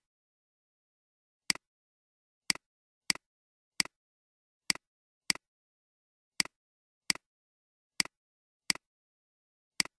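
Computer mouse clicks, about eleven in an uneven run, each a sharp click followed at once by a softer one, with dead silence between.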